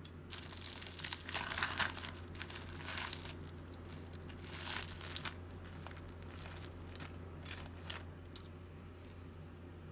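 Plastic bag crinkling as hands rummage through loose jewelry inside it, in bursts over the first five seconds. After that come only scattered small clicks and light rustles.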